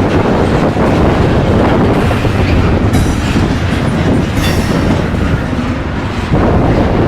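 Freight train cars rolling past close by, with a steady heavy rumble and wheels clacking over the rail joints. Brief higher-pitched streaks come about three and four and a half seconds in.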